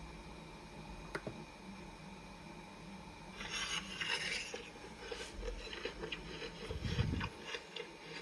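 Handling noise from a small alarm clock being set by its cap. There is a single click about a second in and a scraping rustle around the middle, then a run of small clicks and taps as the cap is twisted and pressed, with one dull thump near the end.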